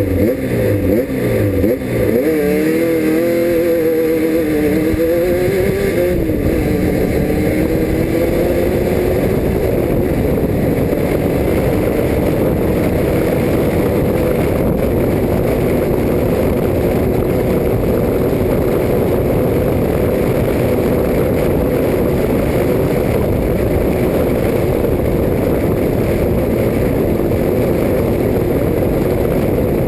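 Off-road race car's engine revving up and down for the first few seconds, then running steadily at high speed under a dense rushing noise.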